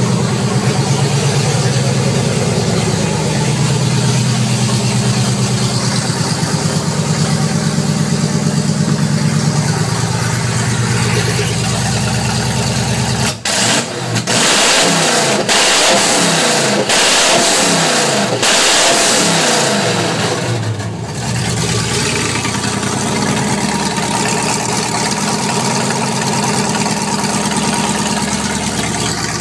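Land Rover Discovery's Rover V8 running with no exhaust, straight out of the headers: a loud, raw, steady idle. About halfway through it is revved hard several times for some seconds, the pitch rising and falling, before settling back to idle.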